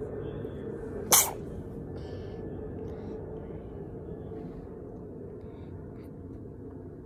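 A single short, sharp burst of noise about a second in, much louder than anything else, over a steady low background hum.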